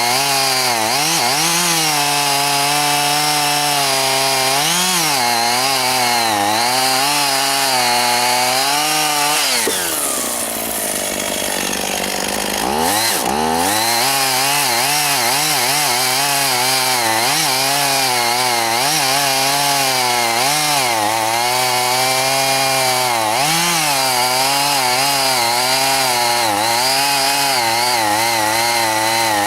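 Two-stroke chainsaw cutting through juniper wood under load, its engine note wavering as the chain bites. About ten seconds in the revs fall away for a few seconds, then climb back up as the cutting resumes.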